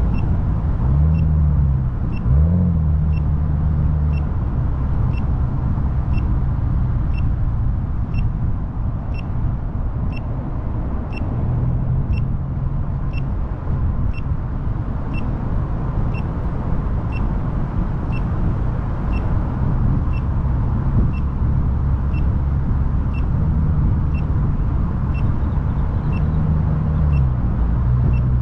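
Car engine and road noise while driving, with the engine's pitch rising and dropping a couple of times. Through it a short, high electronic beep repeats steadily about twice a second.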